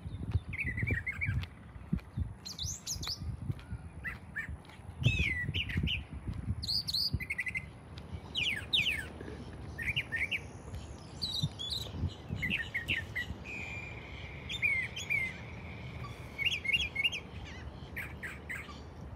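Small birds chirping over and over in short, quickly rising and falling notes, with dull low thumps underneath.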